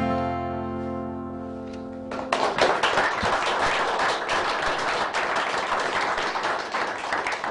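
Final chord of acoustic guitars ringing and fading. A little over two seconds in, the audience breaks into applause, dense clapping that runs on.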